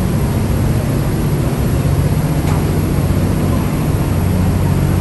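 Steady low drone of a sightseeing ferry's engines, with an even rushing noise over it.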